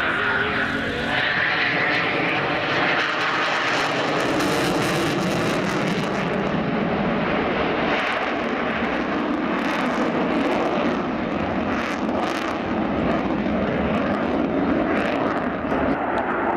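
Eurofighter Typhoon's twin EJ200 turbofan jet engines running at display power as the fighter turns overhead with afterburners lit, a loud steady jet noise. A whine rises in pitch over the first two seconds.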